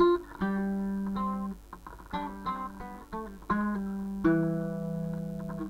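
Acoustic guitar played solo: a short phrase of plucked notes and chords. The last note, about four seconds in, rings on and slowly fades.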